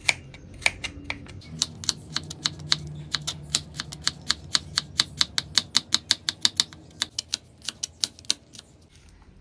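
Chef's knife slicing peeled garlic cloves into thin rounds, each stroke a sharp tap of the blade on the cutting board. The taps come quickly and evenly, about four a second, and stop about a second before the end.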